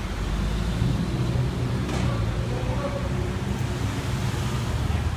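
Steady low rumble of road traffic and idling heavy-vehicle engines.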